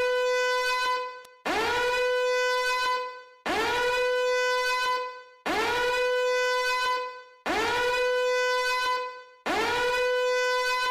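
Electronic alarm tone of the kind used in emergency-alert broadcasts: six long, buzzy, horn-like beeps, one every two seconds, each sliding up briefly at its start and then holding one steady pitch.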